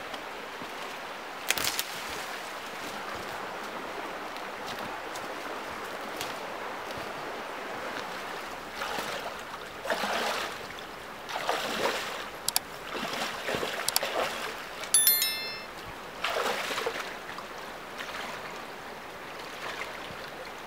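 Shallow river flowing steadily, with a person wading through it in rubber boots: a run of splashing steps from about nine seconds in.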